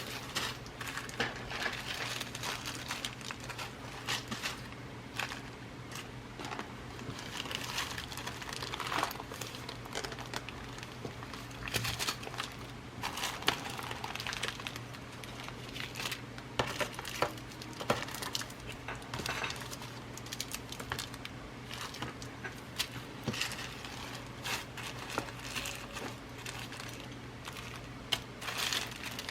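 Small plastic packets of glass seed beads rustling and crinkling as they are handled, with the beads clicking and shifting inside in irregular little bursts. A steady low hum runs underneath.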